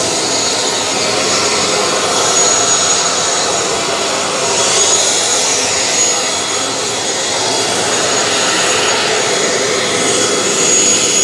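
Aircraft engine running steadily and loudly: a rushing noise with a steady high whine over it.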